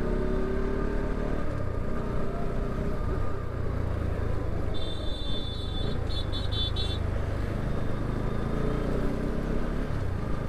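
Bajaj Pulsar RS 200's single-cylinder engine running steadily on the move, with road and wind noise. About five seconds in, a vehicle horn sounds for about a second, then gives four quick toots.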